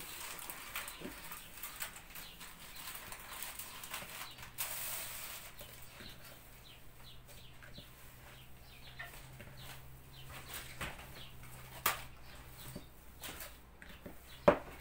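Hands kneading soft, buttery cookie dough in a bowl: irregular soft squishing, pressing and patting strokes, with a sharp knock against the bowl about twelve seconds in and a louder one near the end.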